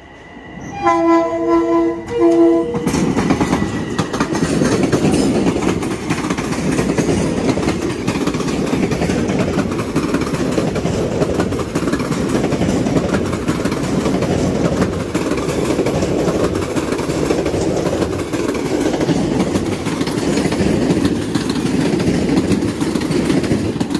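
Long Island Rail Road electric commuter train sounding two short horn blasts as it comes through, then passing at speed with a loud, steady rail noise that lasts about twenty seconds.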